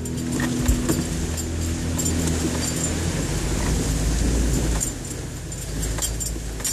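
Jeep driving slowly over a rough, rutted off-road trail: low engine drone with knocks and rattles from the body and suspension, the low drone easing off about five seconds in.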